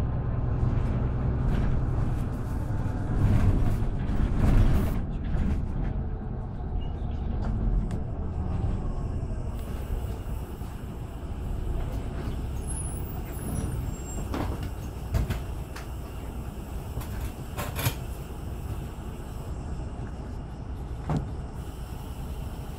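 Mercedes-Benz Conecto LF city bus heard from inside: its OM926LA straight-six diesel runs loudest in the first few seconds as the bus slows to a halt, then idles lower while it stands. A few short sharp clicks and hisses of the air system come in the second half.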